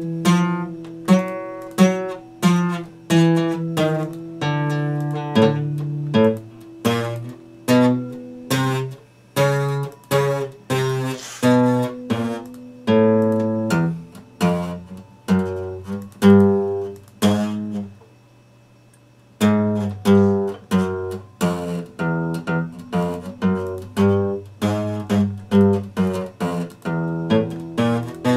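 Epiphone acoustic guitar played solo, picked chords and single notes in a steady rhythm, with a short pause about two-thirds of the way through before the playing resumes.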